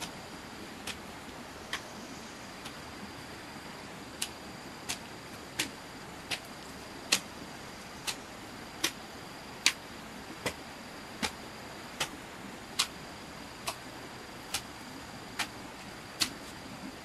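A steady series of sharp, light clicks, a little more than one a second and evenly spaced, over a faint steady high-pitched tone.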